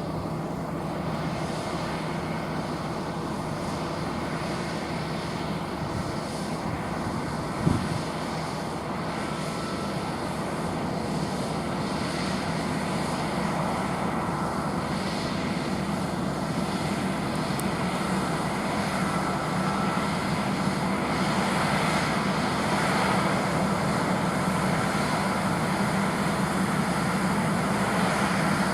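John Deere T670i combine harvester running steadily as it harvests barley, its engine and threshing machinery droning and slowly growing louder toward the end. A single sharp knock about seven and a half seconds in.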